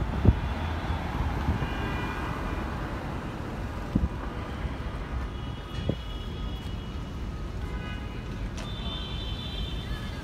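City street traffic passing, with low wind rumble on the microphone and a few dull thumps. Faint higher-pitched tones come and go through it.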